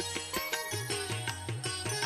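Background music: Indian-style instrumental with quick plucked-string notes over a steady low tone.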